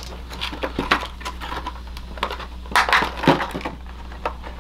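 Plastic packaging tray crackling and snapping in irregular clicks as small action-figure accessories are worked loose from it by hand.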